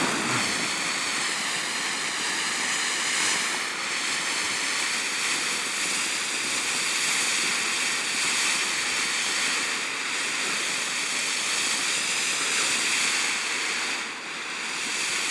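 Dragon Tears firework fountain burning with a steady hissing spray, dipping briefly near the end.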